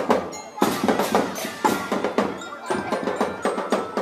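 School marching drum band playing a fast percussion rhythm, about five strikes a second, with faint ringing bell tones over it.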